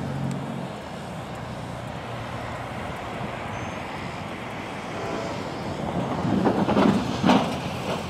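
Distant rumble of an approaching diesel freight train, a steady noisy rush, with the tail of a horn blast fading in the first half second. A few louder, uneven bursts come about six to seven seconds in.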